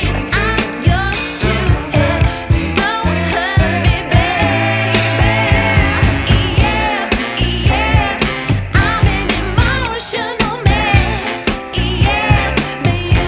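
Background music: a sung pop/soul song with a steady beat and bass.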